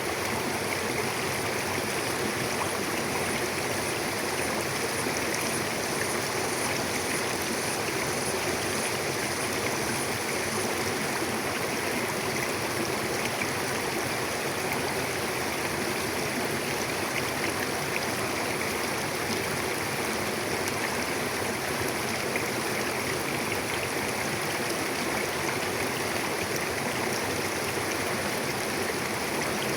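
Mountain river flowing over rocks, a steady rushing and burbling of water.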